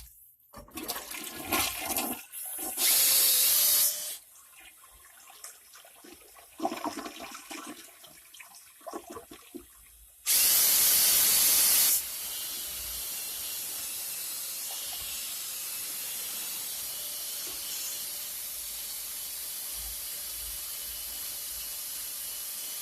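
Toilet flushing: a few knocks, two loud hissing rushes of water, then a steady hiss of the tank refilling through its fill valve for the last ten seconds or so.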